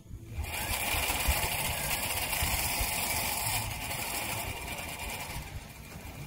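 Overhead shark reel's clicker ratchet buzzing steadily as line is pulled off it fast while the bait is run out, easing off near the end.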